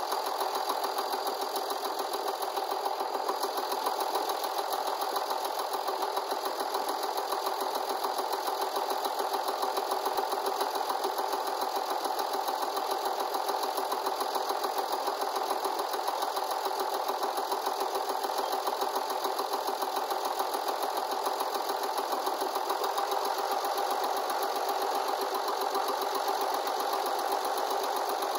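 Hesston 1880DT loader tractor's diesel engine idling steadily, with a fast even chugging.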